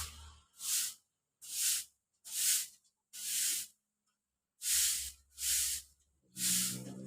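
Hill myna giving a series of about seven short, breathy hisses, each roughly half a second long with short pauses between them.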